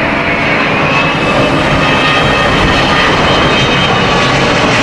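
Airplane engines running with a steady, even drone and a faint high whine.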